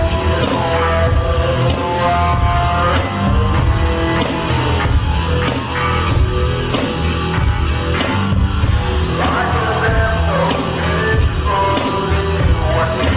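Heavy rock wrestling entrance theme with a steady, driving drum beat.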